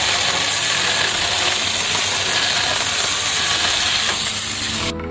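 Mini chainsaw running and cutting through a firewood log, a loud, steady noise. It cuts off suddenly near the end as soft music comes in.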